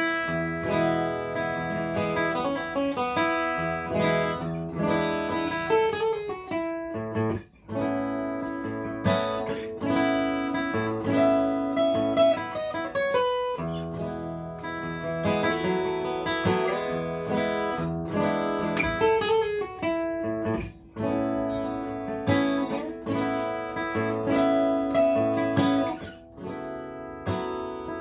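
A solo steel-string acoustic guitar playing a tune of chords and picked notes, with a few brief breaks in the playing.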